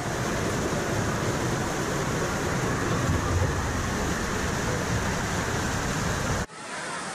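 Water rushing through the start chute of a fibreglass water slide, loud and close as the rider sets off into the tube. Near the end it cuts off abruptly, leaving a quieter steady background.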